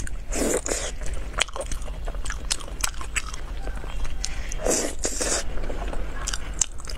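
Close-miked wet chewing and biting of saucy braised pork, with many short sticky mouth clicks and smacks, and two longer, louder bites about half a second in and near five seconds.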